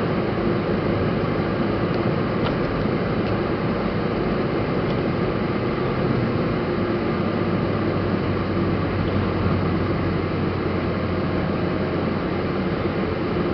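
Steady road and engine noise inside a moving car's cabin, with a low even hum that does not change.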